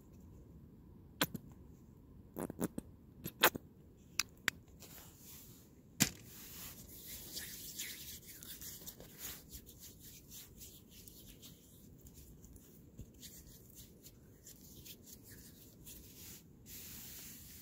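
A few sharp plastic clicks and taps from handling a small plastic squeeze bottle, the loudest about six seconds in, then hands rubbing together, a soft steady swishing.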